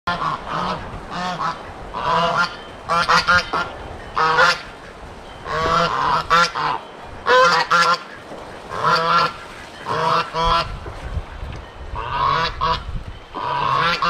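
Domestic geese honking over and over, a call every second or so, with short runs of quick honks mixed in.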